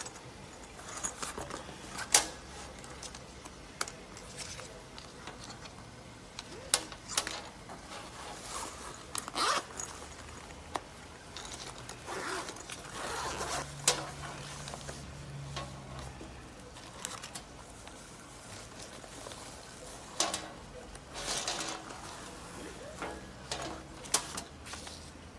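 A padded laptop sleeve being handled: its zip runs in short rasps amid fabric rustling, with scattered clicks and scrapes as the laptop is fitted inside.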